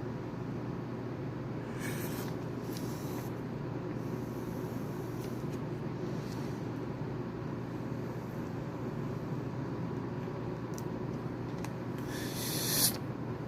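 Steady low hum and hiss of the room and recording, with a few faint brief rustles of handling, and a louder hissing rustle near the end.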